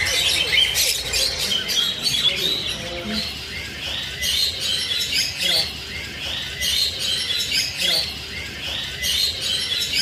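A crowded cage of small finches, mostly red avadavats (strawberry finches), chirping all together in a dense, high-pitched, continuous twittering chorus.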